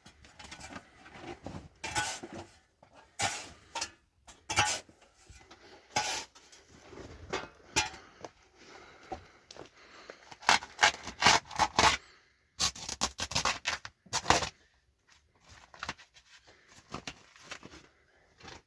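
Hard objects scraping and clinking against each other in short, irregular bursts, with quick runs of sharp clicks a little past the middle.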